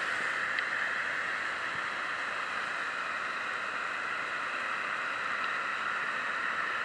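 Steady static-like hiss from a handheld digital voice recorder's small speaker, playing back a silent gap in an EVP recording while it is held to the ear to listen for a spirit voice.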